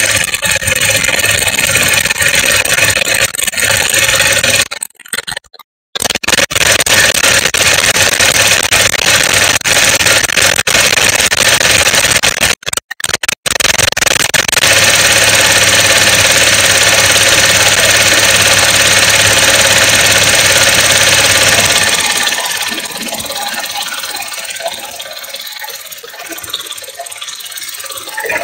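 Supercharged engine of a stage 1 tuned 2016 Audi S4 with an aftermarket intake, recorded from under the engine and cleaned up with noise reduction. It runs with a steady supercharger and intake sound, cuts out briefly twice, and grows quieter for the last few seconds.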